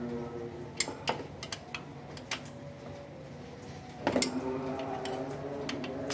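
Scattered sharp clicks and clinks of metal tools and parts being handled at the underside of an engine, with a louder cluster of clicks about four seconds in.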